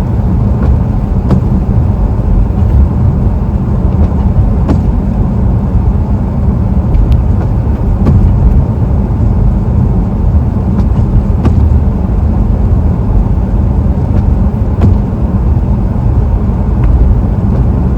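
Steady low rumble of road and engine noise heard from inside a moving car's cabin, with a few faint, irregular ticks.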